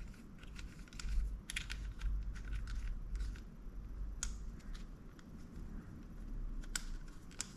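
Shimano Cardiff 401A baitcasting reel being handled during reassembly: scattered light clicks and taps of its parts and cover, over low bumps and rumble from handling.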